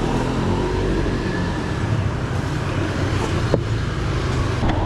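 Road traffic: a steady, loud run of vehicle engines passing, with one sharp click about three and a half seconds in.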